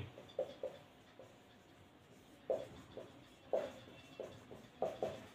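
Marker pen writing on a whiteboard: a faint series of short strokes, pausing for about a second and a half near the start before carrying on.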